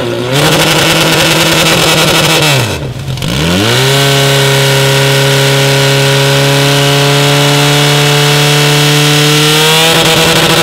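Portable fire pump's engine running at high revs, a steady high-pitched engine note; the revs drop sharply and climb back about three seconds in, then hold high while the pump feeds water to the hose lines.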